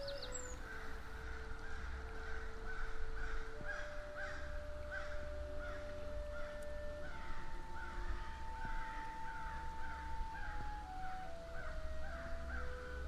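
Crows cawing in a steady run of short, harsh calls, two or three a second.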